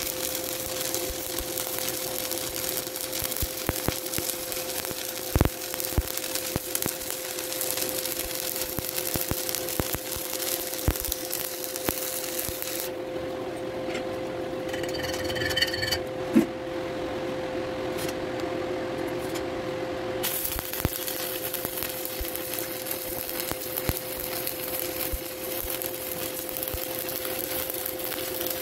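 Stick (shielded metal arc) welding on a vertical-up fill pass: the electrode's arc crackles and hisses steadily with occasional sharp pops, over a steady hum. The crackle drops out for several seconds midway, then resumes.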